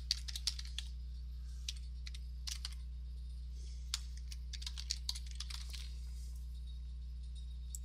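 Computer keyboard being typed on: irregular short runs of key clicks with pauses between them, over a steady low electrical hum.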